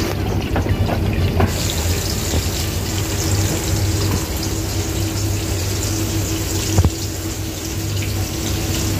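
Mackerel pieces sizzling in hot oil in a wok: a steady frying hiss over a low hum, with a single sharp knock about seven seconds in.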